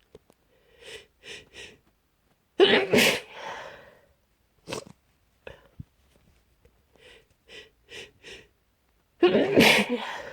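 A person sneezing twice, trying to stifle the sneezes. Each sneeze follows three short catching breaths, and there are a couple of short sharp sniffs between them.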